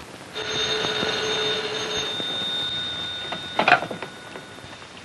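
Desk telephone bell ringing steadily for about two and a half seconds, then a short clatter about three and a half seconds in as the handset is lifted from its cradle.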